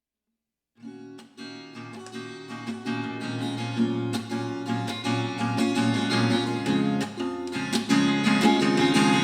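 Background music: after a moment of dead silence, a song's acoustic guitar intro starts about a second in, strummed and plucked, growing louder.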